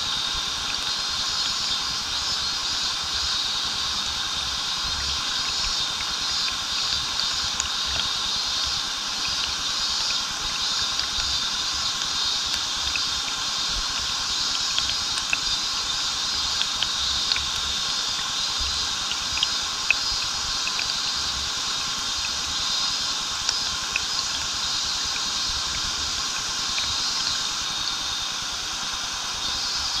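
Small waterfall pouring and water splashing, a steady rushing noise with occasional small clicks of drops. A steady high buzz of cicadas runs over it.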